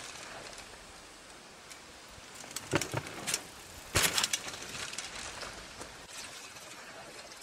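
Mountain bike riding the drop: a few sharp clatters as it rolls off the wooden ramp, then a loud landing thud about four seconds in, followed by a short rattle of the bike.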